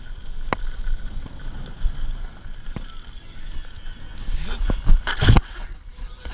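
Mountain bike rolling fast down a sandy dirt trail: steady tyre and wind noise with a few sharp rattling knocks from the bike. About five seconds in comes a quick cluster of loud thumps and scrapes as the bike and rider crash.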